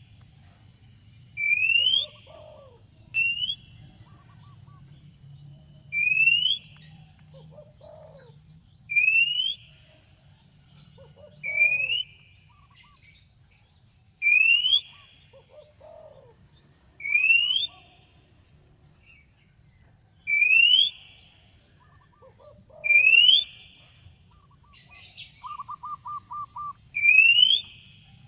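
Oriental magpie-robin (kacer) whistling one short, clear, rising note again and again, about every two and a half to three seconds, each followed by fainter lower notes. A quick run of about seven notes comes a little before the end.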